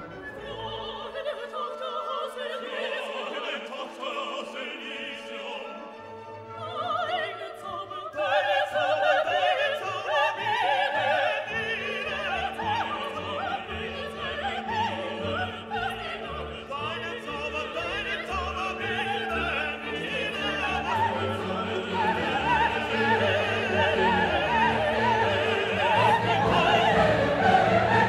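Background classical music: an orchestra with operatic singing, growing fuller and louder about eight seconds in.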